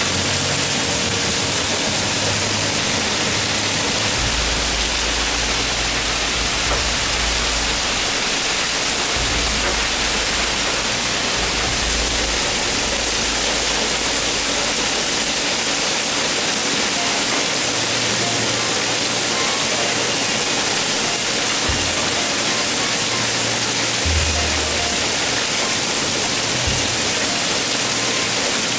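Heavy rain pouring down, a steady, even hiss. From about four to thirteen seconds in, a low rumble runs underneath.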